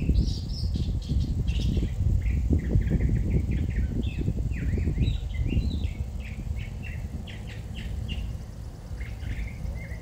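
Songbirds chirping and calling, with many short high chirps and quick downward-sweeping notes. Under them is a low rumbling noise that eases off about halfway through.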